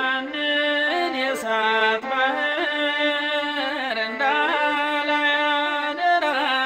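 Ethiopian Orthodox mezmur (hymn): a voice sings long held notes with ornamented turns over steady instrumental accompaniment.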